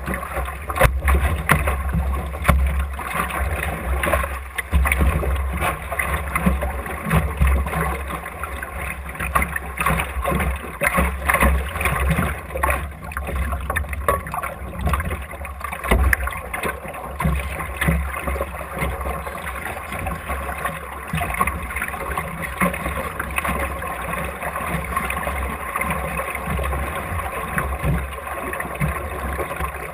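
Water rushing, slapping and gurgling along the hull of a small Optimist sailing dinghy under way, with many small knocks and a steady low rumble of wind on the microphone.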